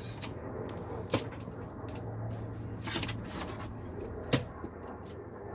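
Car interior trim being worked loose by hand, giving light rustling and a few sharp knocks and clunks; the loudest knock comes about four seconds in.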